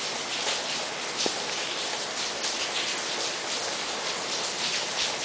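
Steady rain falling and pattering on surfaces, with a single sharp tick about a second in.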